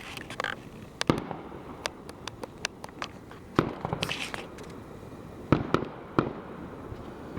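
Fireworks going off: irregular sharp bangs and pops, about ten in all, the loudest about three and a half seconds in, with crackling clusters near the start and around four seconds.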